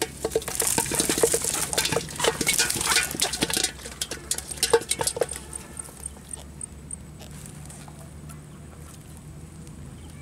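Live fish flapping and slapping against a cast net and the hands picking them out: a quick, irregular run of taps and rustles for the first half or so, then much quieter.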